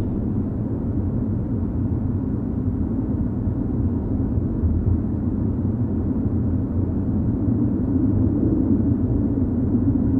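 Low, steady rumbling drone from a horror sound-effect track, growing slightly louder toward the end.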